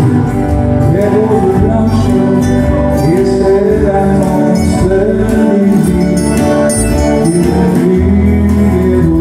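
Live country music: acoustic guitars strumming chords under a gliding melody line, played steadily without a break.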